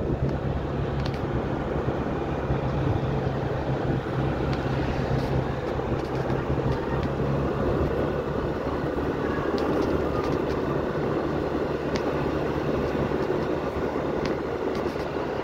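A vehicle driving along a paved road: a steady engine hum with road and wind noise. The engine's low steady note fades about halfway through.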